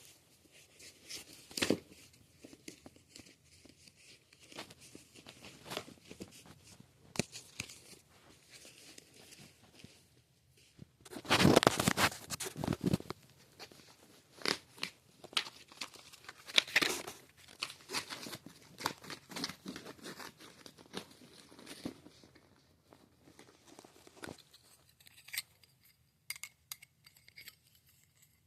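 Trading cards being handled: irregular rustling, crinkling and small clicks, with a louder burst of rustling lasting about two seconds near the middle.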